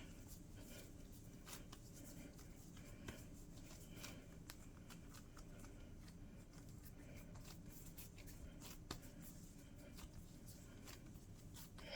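Near silence with faint, scattered soft ticks and rustles of hands working a ball of bread-like dough.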